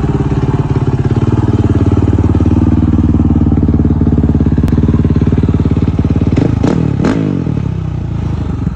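Husqvarna FE501's single-cylinder four-stroke engine idling with a steady pulse, blipped twice in quick succession about two-thirds of the way through, the revs rising and falling back to idle.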